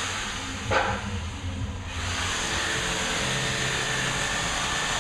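Steady machine hum and whir, with one short, sharp, higher sound just under a second in.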